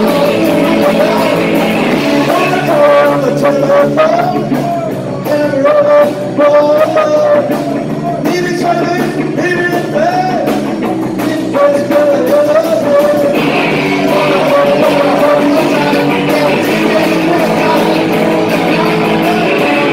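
Live rock band playing: electric guitars, bass guitar and drums, with a man singing lead.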